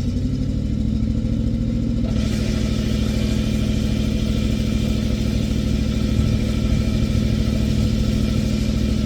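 Old International backhoe's engine running steadily at close range; about two seconds in a higher hiss joins the engine note and carries on.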